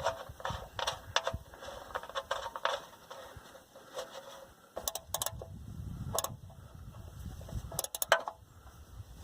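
Light metallic clicks and taps of a wrench tightening an oil drain plug back into the oil pan. A few sharper clicks come around the middle and near the end.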